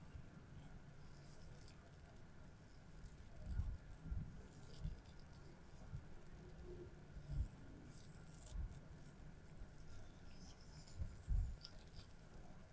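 Faint rustle of black gloved fingers turning a coin in the hand, with several soft low thumps of handling, the loudest near the end.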